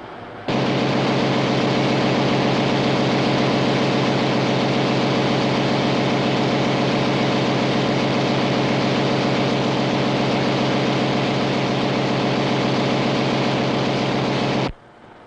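Ship's engine-room machinery running: a loud, steady droning hum with a hiss over it. It starts suddenly about half a second in and cuts off suddenly near the end.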